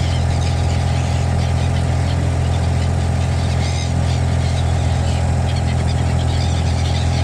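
A motor engine running at a steady idle-like drone throughout. Faint high chirping calls of birds come over it now and then.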